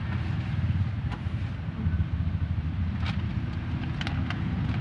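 A steady low engine-like rumble, with a few sharp crackles of a plastic snack wrapper being torn open, the last of them about four seconds in.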